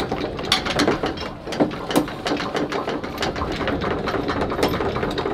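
Catamaran's anchor windlass running, with the chain clanking and clicking irregularly over a steady motor hum as it is hauled in while a snorkeler frees it from a rock.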